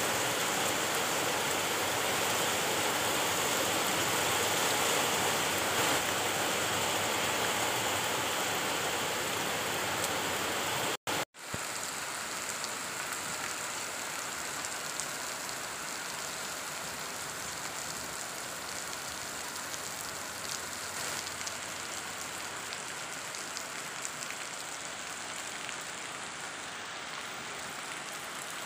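Steady rain falling, an even hiss of rainfall on the ground, roofs and foliage. It cuts out for a moment about eleven seconds in and comes back a little quieter.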